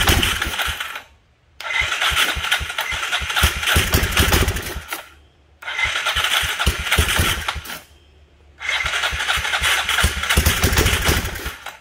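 Four-wheeler engine being cranked by its electric starter, powered straight from a battery by a hot lead tapped onto the starter nut, with ether sprayed into the carburetor. It cranks in four bursts of one to three seconds with short pauses between, and does not settle into running; the mechanic is sure the carburetor is completely gummed up.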